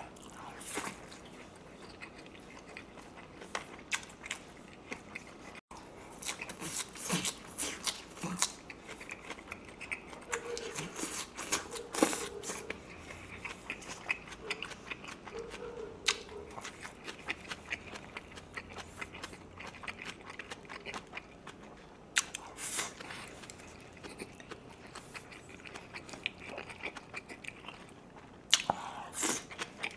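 Close-miked chewing: a person biting and chewing grilled pork belly with raw vegetables and kimchi, wet smacking with crunchy bites. Louder crunches come about 7 s in, around 12 s, about 22 s in and again near the end.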